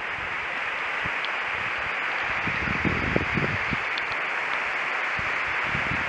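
Steady rushing of water, an even hiss that holds through, with a few soft low thumps about halfway through.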